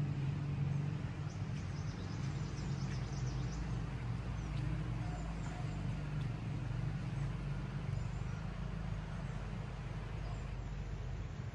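Faint, high bird chirps, mostly in the first few seconds, over a steady low outdoor rumble.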